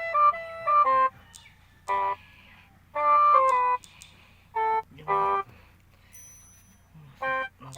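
Background music: short phrases of bright, pitched keyboard-like notes stepping up and down, broken by brief pauses.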